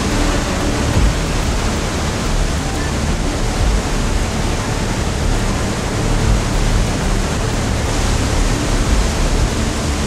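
Iguazu Falls' huge cascades of water pouring down, a loud, steady rush of falling water without a break.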